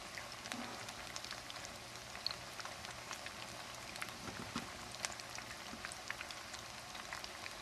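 Batter-coated chicken wings deep-frying in hot oil in a wok over a low flame: a steady sizzle dotted with many small pops and crackles.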